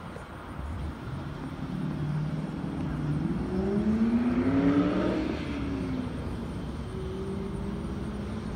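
A motor vehicle driving past, its engine growing louder to a peak about halfway through, with the pitch rising and then dropping as it goes by and fades.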